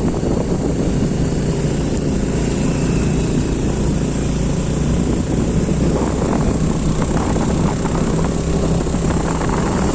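A motor vehicle's engine running steadily during a ride, a continuous low rumble.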